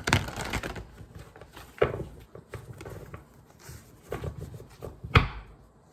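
Tarot cards being handled: rustling, and cards slapped down onto a table in a few sharp taps, the loudest about two seconds in and about five seconds in.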